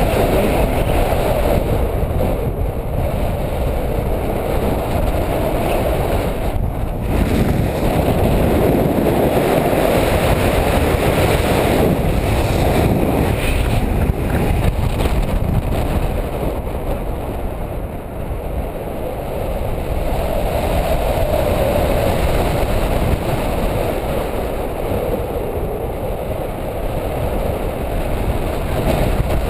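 Airflow of tandem paraglider flight rushing over a GoPro's microphone: a loud, steady rumbling rush that eases a little about eighteen seconds in.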